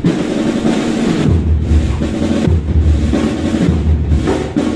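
Military band drums playing a slow procession beat: continuous snare drum rolls with a heavy bass drum stroke about once a second.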